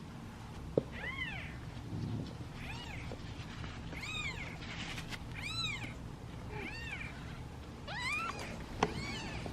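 Young British Shorthair kittens meowing over and over in high, rising-and-falling calls, some overlapping: hungry kittens impatient for their bottle feed. Two sharp clicks, one near the start and one near the end, are the loudest sounds.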